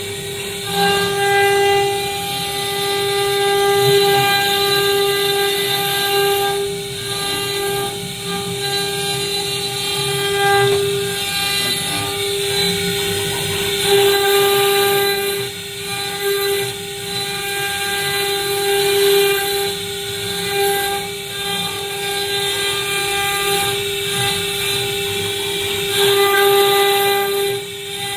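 STYLECNC STS1325H stone CNC router's spindle whining at a steady high pitch as its bit engraves letters into a water-cooled black stone slab. A rough grinding noise from the cut rises and falls under the whine.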